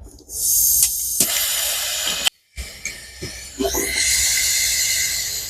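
MAP gas torch flame hissing steadily as it heats silver chain links for soldering, in two stretches. The first stops abruptly about two seconds in; the second starts again about a second later and fades near the end.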